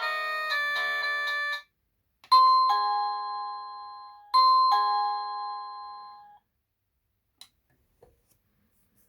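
EMASTIFF wireless doorbell ringing its ringtones. A polyphonic melody cuts off about a second and a half in. Then a two-note ding-dong chime rings twice, two seconds apart, each note fading away, followed by a couple of faint clicks.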